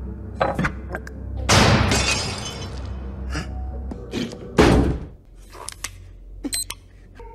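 Film soundtrack sound effects over a music score: a few knocks, then a long crash lasting about a second, then a single heavy hit about four and a half seconds in, the loudest moment, followed by softer clicks.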